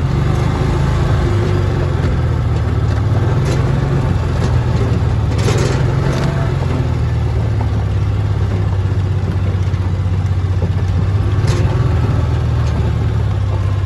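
Electric water transfer pump running steadily with a strong, even low hum, pumping well water through a hose. A few faint clicks sound over it, the clearest about five seconds in.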